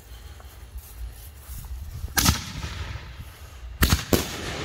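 Black Cat Neon Diablo 5-inch canister shells firing from mortar tubes: three sharp booms of the launches, one a little over two seconds in and two close together near the end.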